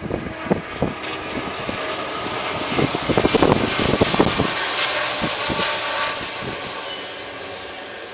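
Diesel freight locomotive passing close by at speed: loud engine noise with rapid clacks of wheels on the rails, loudest about three to four seconds in, then easing as the double-stack container cars roll past.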